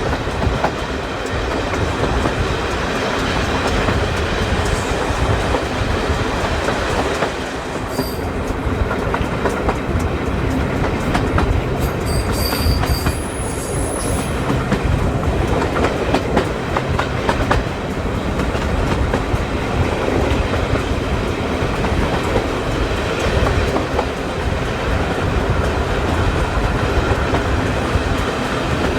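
A steam-hauled heritage train's carriages running over jointed track with a steady clickety-clack from the wheels. A brief high wheel squeal comes about 8 seconds in, and another from about 12 to 14 seconds in.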